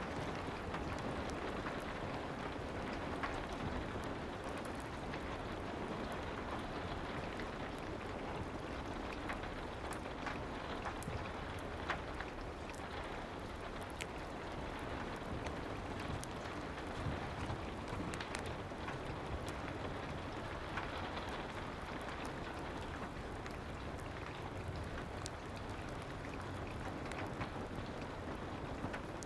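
Soft rain hissing steadily, mixed with a fireplace crackling: scattered sharp pops and clicks over the even rain.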